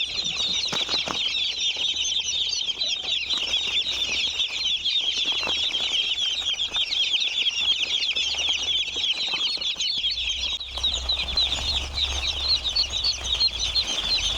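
A flock of young broiler chicks peeping constantly, many short, high, falling peeps overlapping without a break. A low rumble joins about ten seconds in.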